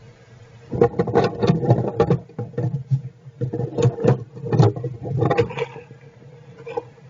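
Squirrels scuffling and rustling in their nest, a burst of scratchy clicks and shuffling that starts about a second in and dies away after about five seconds. A faint steady hum runs underneath.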